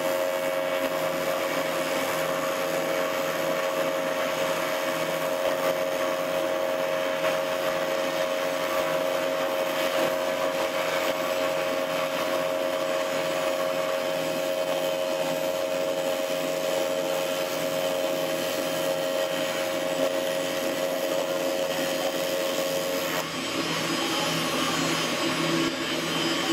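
AC TIG welding arc on aluminum from a Miller Dynasty inverter welder, giving a steady, even buzz that holds without a break. The buzz cuts off a few seconds before the end as the arc is broken.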